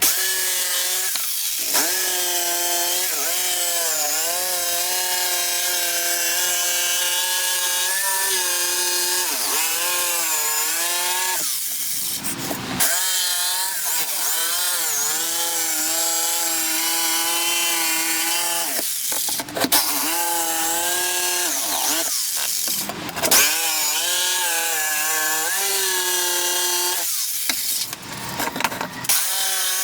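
Electric power tool cutting wood, its motor whine dipping and recovering in pitch as it loads in the cut. It stops briefly about 12, 19 and 23 seconds in, and starts and stops several times near the end.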